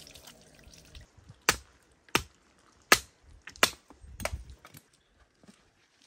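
Water trickling over hands into a stone basin, then five sharp clicks about two-thirds of a second apart.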